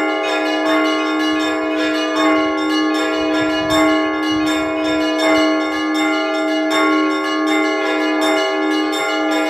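Russian Orthodox church bells rung by hand in a continuous peal calling the faithful to prayer: small bells struck several times a second over steady ringing tones, with a heavier stroke about every second and a half.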